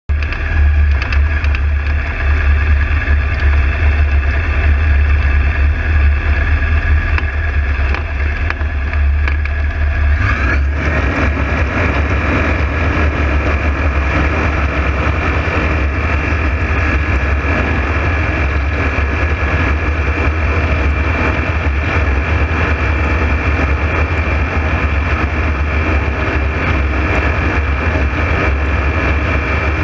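Engine of a motorized hang glider running steadily in flight, with a shift in its tone about ten seconds in.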